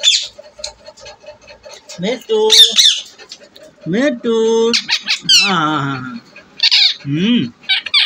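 Rose-ringed (Indian ringneck) parakeet squawking and chattering: a string of short calls, some high and shrill, one gliding downward about five seconds in.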